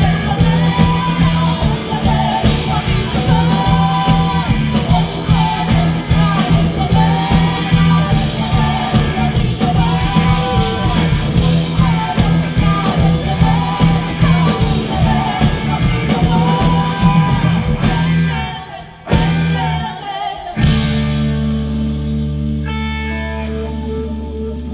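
Live rock band with drum kit, hand drums, guitars and a sung melody playing loud and driving. About 18 seconds in the band cuts off, and after a short break a held chord rings out and slowly fades.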